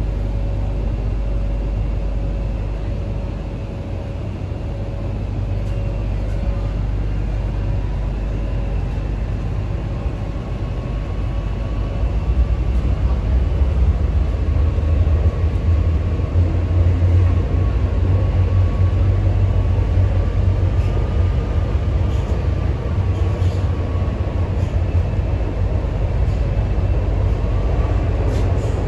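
Inside an MTR Kwun Tong Line C-train car as the train pulls out of a station into the tunnel: a steady rumble of wheels on rail with a faint electric traction whine. The rumble grows louder about twelve seconds in.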